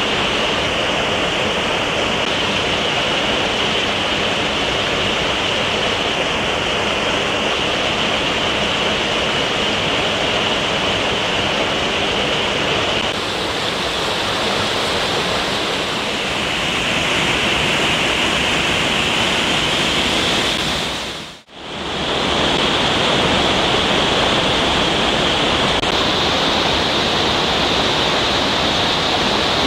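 Steady rush of a small waterfall and mountain stream. It drops out briefly about two-thirds of the way through, then comes back unchanged.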